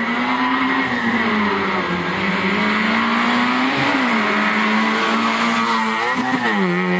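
Small hatchback race car's engine revving hard under acceleration, its pitch climbing and then dropping sharply about four seconds in and again near the end, as at gear changes, with a steady high whine over it.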